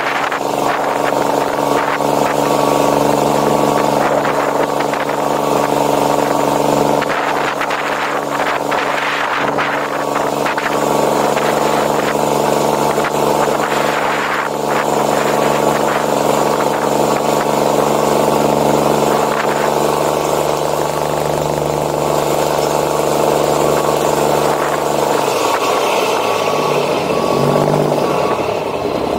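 Straight-piped Cummins diesel of a Kenworth C500 winch tractor running steadily as the truck drives. The engine note falls near the end.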